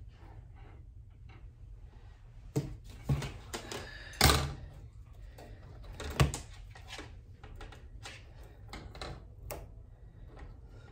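Black metal wire wreath forms clattering on a tabletop as they are handled and set down: a few sharp knocks, the loudest about four seconds in, with lighter taps and rattles between.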